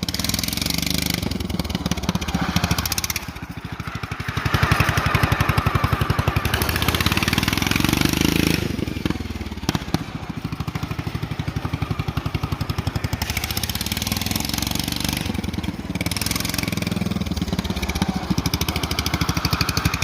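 Racing tractor's engine running under load, with a fast, even firing beat; the revs rise and it gets louder from about four to eight seconds in, then it settles back.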